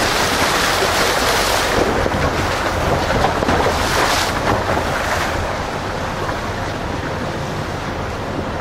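Four-wheel-drive vehicle driving over a rough, muddy, rocky track: steady engine and tyre rumble with wind noise on the microphone, the hiss stronger for the first five seconds or so and then easing a little.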